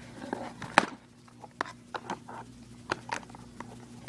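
Scissors cutting an RC toy free of its plastic packaging and the packaging being handled: irregular sharp clicks and snips with light rustling.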